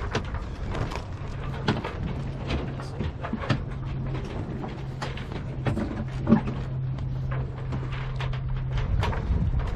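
Sailboat's sails flogging and rigging knocking irregularly as the boat rolls in waves with too little wind to drive it, with one sharper bang about six seconds in. A rumble of wind and water and a steady low hum lie underneath.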